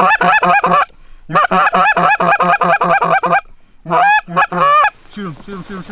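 Rapid Canada goose honks and clucks, loud and close, about six a second, in three quick runs with short breaks between them. Near the end a quieter series of lower, falling notes follows.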